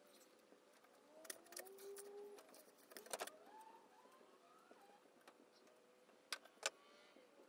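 Mostly near silence, with a few faint clicks and knocks from hand work on a wooden motor mount: a small cluster about a second in, a louder rattle about three seconds in, and two sharp clicks near the end.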